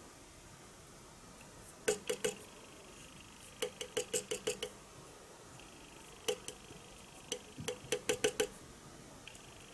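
Quick runs of sharp metallic clicks, three to seven at a time, about five a second, from measuring tools and metal being handled on a surface plate. A faint steady high whine comes and goes between them.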